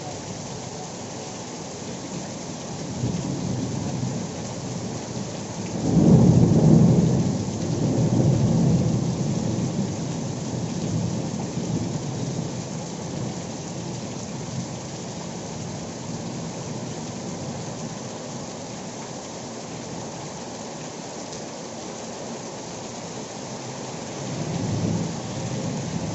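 Heavy monsoon rain pouring steadily onto a road, with low rumbles that swell, loudest about six seconds in and again near the end.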